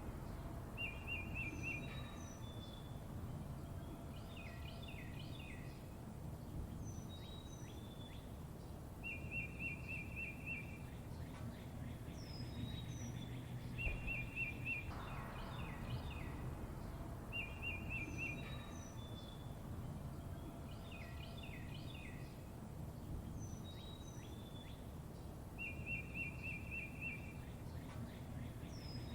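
Songbirds chirping and singing: short rapid trills, quick falling whistled notes and thin high chips, repeating every few seconds over a steady low background rumble.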